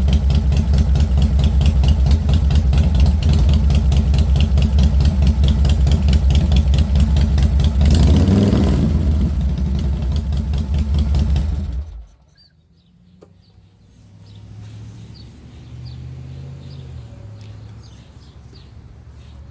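Harley-Davidson Dyna's V-twin engine idling with an even, pulsing beat, freshly started from a push button mounted on the starter solenoid. The revs rise and fall briefly about eight seconds in, and the engine is shut off suddenly about twelve seconds in.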